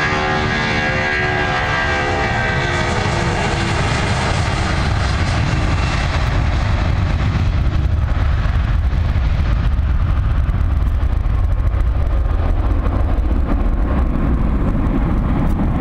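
A jet airliner passing close by. Its engine whine falls in pitch as it goes past, then gives way to a deep, steady rumble.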